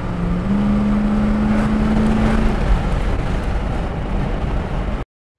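Cabin sound of a 1974 Mercury Colony Park wagon on the move: its 460 four-barrel V8 engine running with heavy road and wind rumble. The engine note rises slightly in pitch about half a second in, then fades back into the rumble. The sound cuts off suddenly near the end.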